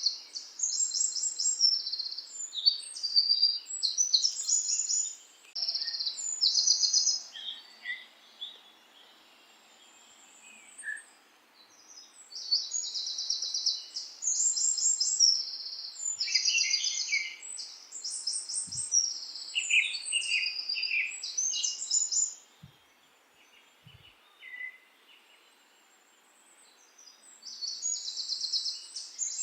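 Songbirds singing in short, high, rapidly trilled phrases, one after another, over a faint steady background hiss; the singing pauses twice for several seconds.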